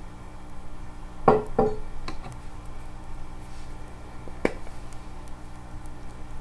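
A few sharp knocks or clinks of hard objects being handled, each ringing briefly: two close together about a second in, two fainter just after, and one more near the middle, over a steady low hum.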